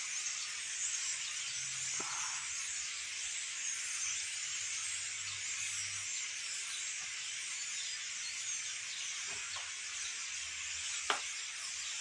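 A large flock of birds calling all at once overhead, a dense, steady, high-pitched chatter with no single call standing out. A single sharp click sounds near the end.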